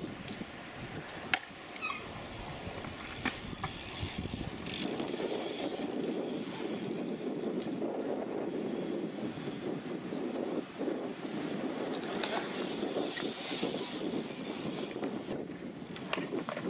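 BMX bike tyres rolling over concrete in a skatepark bowl, a steady rushing rumble, with a few sharp clicks and knocks from the bike, the loudest about a second in.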